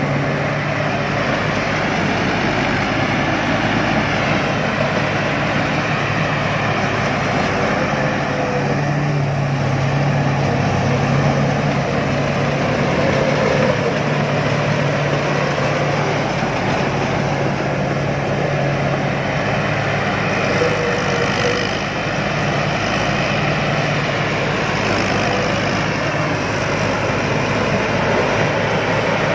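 Rice combine harvester running steadily: a continuous engine and machinery noise with a steady low hum.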